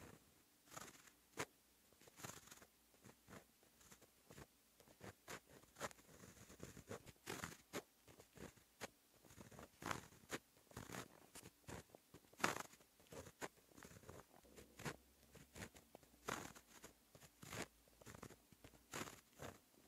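A white-ink pen writing Japanese characters on black paper: a faint, irregular run of short strokes as the tip moves across the paper, with one louder stroke about twelve seconds in.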